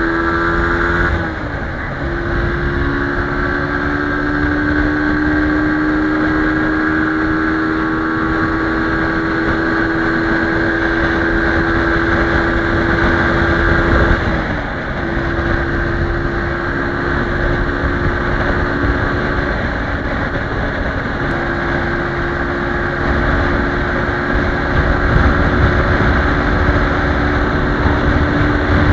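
Brixton BX 125 R's single-cylinder four-stroke engine pulling at motorway speed, with wind rush on the microphone. Its pitch drops at upshifts about a second in and about fourteen seconds in, then climbs slowly as the bike gathers speed.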